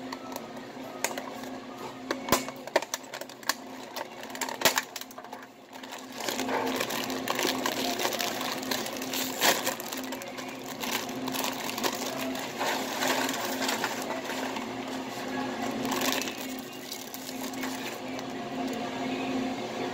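Plastic wrapping on a tray of tortilla chips crinkling and rustling as it is handled and unwrapped. There are sharp crackles in the first few seconds and denser, steadier crackling from about six seconds in, over a steady low hum.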